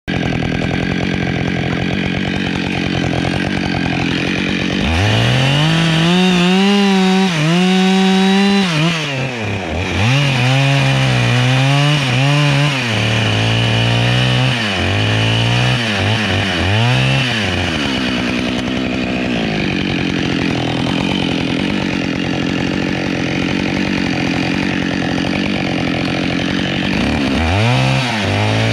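Husqvarna 572XP two-stroke chainsaw at high revs cutting pine, its pitch sagging and recovering several times as the chain loads in the wood, then running steadier, with a quick rev again near the end.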